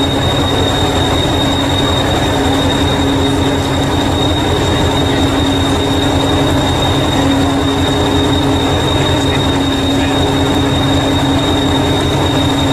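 Heritage diesel-electric multiple unit 1001 standing with its diesel engine idling, a steady low throb under a constant high-pitched whine.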